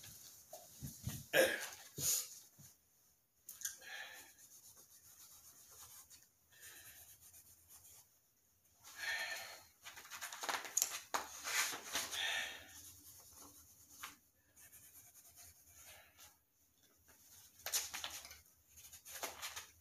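A man's breathy, wheezing laughter in a few short bursts: about a second in, a longer spell in the middle, and again near the end, with quiet between.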